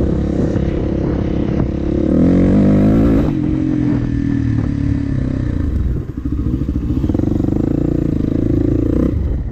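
Dirt bike engine running under throttle, heard from the rider's seat: it revs up about two seconds in, eases off just after three seconds, dips briefly near six seconds, then holds a steady throttle.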